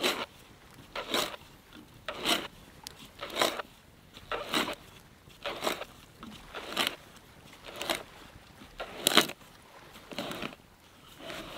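T-handled hand auger boring into a log, each turn of the handle giving a scraping rasp of wood, about one stroke a second.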